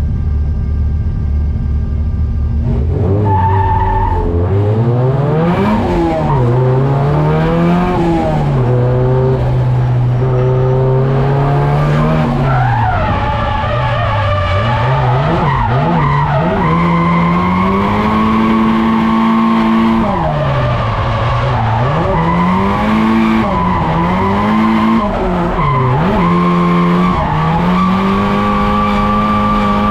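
Drift car's SR20DET turbo four-cylinder engine heard from inside the cabin: running low and steady for about three seconds, then revving hard, the revs swinging up and down again and again and held high through the second half, with tyres skidding under the drifting.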